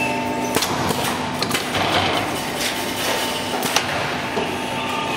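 Grassland fence weaving machine running: a steady mechanical hum with irregular sharp knocks, the loudest about four seconds in.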